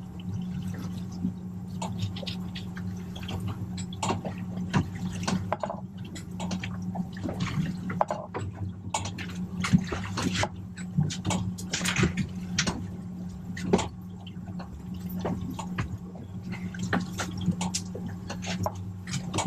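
Water splashing and trickling in irregular small splashes over a steady low hum.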